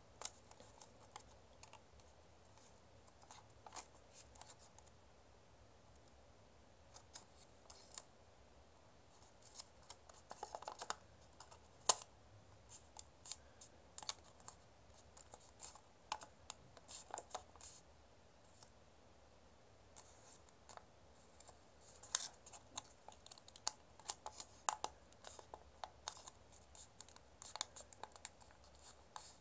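Origami paper being folded and creased by hand: faint, irregular crisp crinkles, rustles and clicks of stiff paper, coming in scattered clusters.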